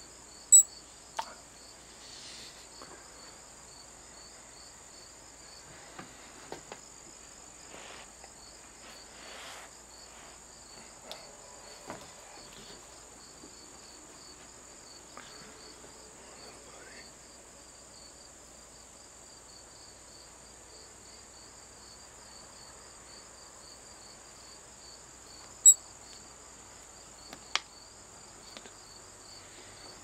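Steady insect chorus: a continuous high trill with a rapid pulsing chirp beneath it. Two sharp clicks, one just after the start and one near the end, are the loudest sounds, with a few faint soft rustles in between.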